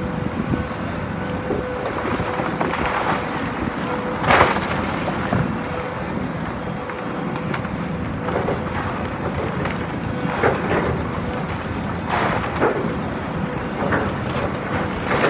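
Demolition of a brick wall: heavy machinery running steadily, with crashes and crunching of breaking masonry several times, the loudest about four seconds in.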